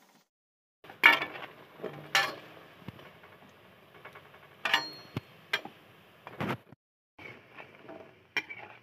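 A perforated steel skimmer clinking and scraping against a metal kadhai while stirring dough pieces frying in oil, with a sharp clink every second or so over the steady sizzle of the oil.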